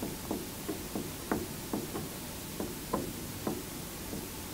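Marker pen tapping and scraping on a whiteboard as an equation is written out: about a dozen short, light knocks, a few each second, one for each stroke of the pen.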